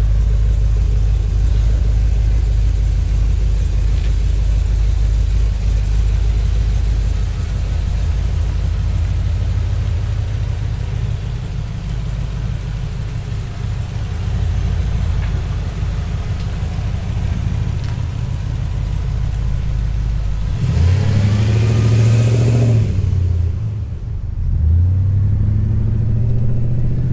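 Supercharged LS V8 of a second-gen GMC Syclone pickup rumbling steadily at low revs as the truck rolls out, then, heard from inside the cab, the engine rises in pitch and drops back twice as the truck accelerates away.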